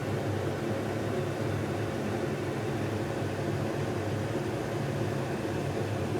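Steady low hum of an idling truck, heard from inside the cab.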